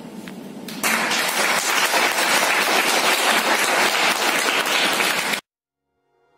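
An audience clapping, starting suddenly about a second in and cutting off sharply after about five seconds.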